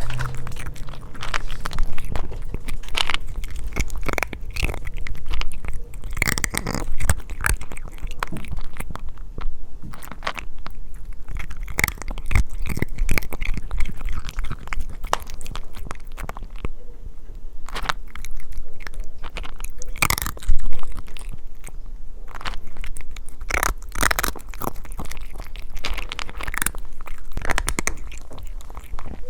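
A cat crunching dry kibble, with irregular bites and crackling chews, one louder crunch about 20 seconds in.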